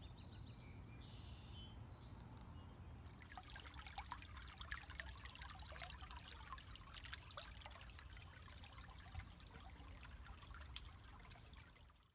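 Faint trickle of a shallow stream running over pebbles and stones, a busy crackle of small splashes starting about three seconds in, over a low steady rumble.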